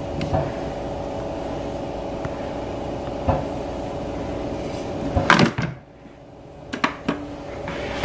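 Bosch Tassimo pod coffee machine brewing into a mug: its pump runs with a steady hum, ending a little past five seconds in with a loud burst of noise before it goes quiet. A few sharp clicks follow near the end.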